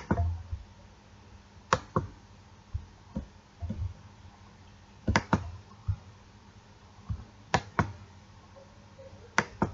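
Sharp clicks in pairs about a quarter second apart, a pair every two to three seconds, over faint room tone.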